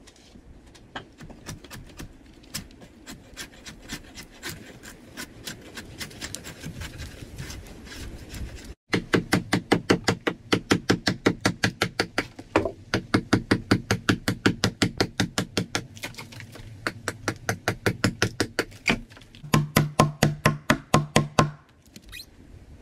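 A file or rasp worked back and forth on wood in steady strokes, about three a second; after a short break the strokes come much louder. Near the end there is a quicker run of hammer taps on the wooden door.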